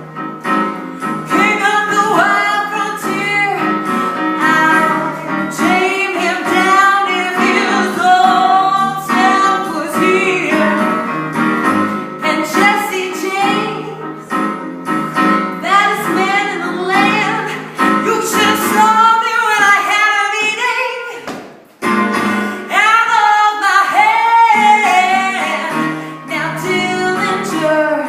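A woman singing a wavering melody over steady instrumental accompaniment, with a brief pause about 22 seconds in.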